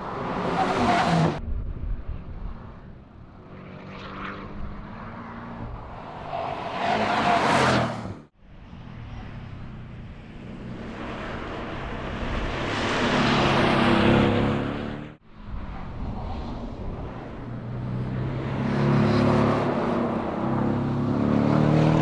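Porsche 718 Cayman driving past on a race track, its engine rising in pitch and volume as it accelerates by, then fading. Several pass-bys follow one another, with sudden breaks about 8 and 15 seconds in.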